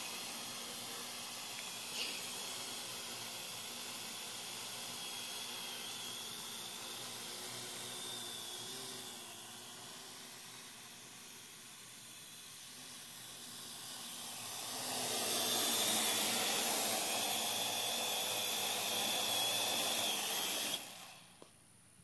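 Parrot AR.Drone quadcopter's four rotors running with a steady whirring hiss and a faint whine. The sound fades as the drone flies off and gets louder again as it comes back close, then cuts off suddenly near the end as the motors stop on landing.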